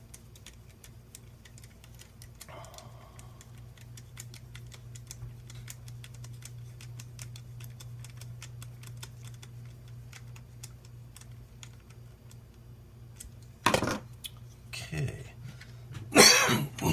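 Screwdriver driving a screw into a 3D-printed plastic part, a steady run of light clicks several times a second, then a few louder knocks near the end as tools and parts are handled on a wooden table. A low steady hum runs underneath.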